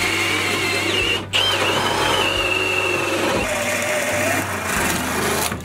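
Cordless drill motor running under load as a bit bores a hole through wooden framing, with a steady high whine that stops briefly about a second in, then resumes until the drill stops at the end.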